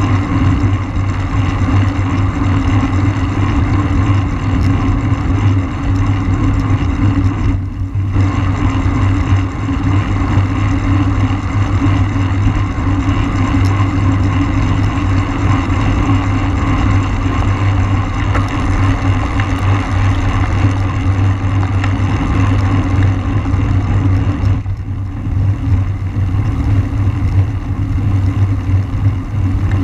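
Wind rushing over the microphone of a camera riding on a road racing bicycle in a criterium, a loud steady rumble that dips briefly twice.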